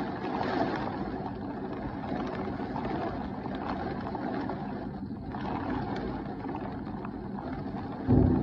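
Heavy thunderstorm rain pouring down with gusting wind, a steady rushing noise. Near the end comes a sudden loud, low thump.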